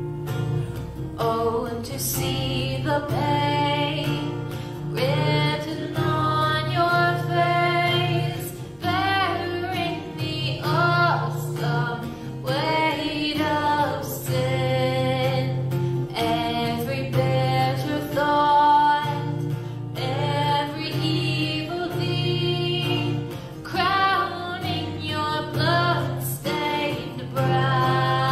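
Gospel worship song: a woman singing over acoustic guitar accompaniment.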